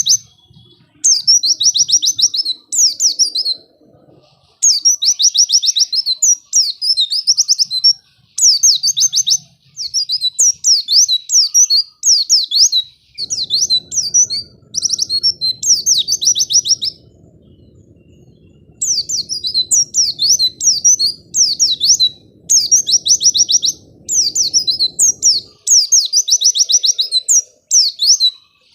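White-eye (pleci) singing: fast, high-pitched chattering song phrases, repeated in bursts of a second or two with short gaps and one longer pause past the middle.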